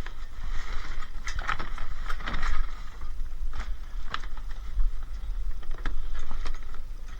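Irregular knocks and rustling, a few a second at most, over a constant low rumble.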